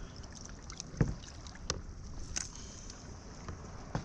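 A few sharp knocks and clicks on a plastic sit-on-top kayak, the loudest about a second in, over a low steady wash of water and wind.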